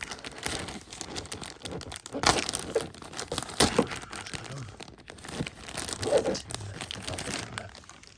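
Parcel packaging being torn open and crumpled by hand: continuous crinkling with a few sharper tearing snaps in the middle.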